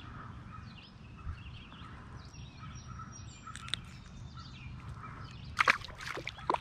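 Birds chirping and calling over a steady quiet outdoor background, then a few sharp water splashes near the end, the loudest sounds here.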